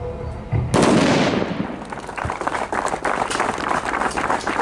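An explosive demolition charge going off, a sudden loud blast about a second in that dies away over about a second, the IED being destroyed in place. From about two seconds in, a crowd claps.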